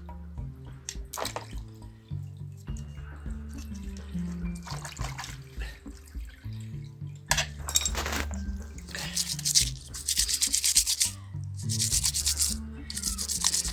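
Fast rubbing strokes scraping caked dirt off a part of a Bosch dough mixer, in runs of rapid strokes starting about halfway through, over steady background music. Only a few single scrapes come before that.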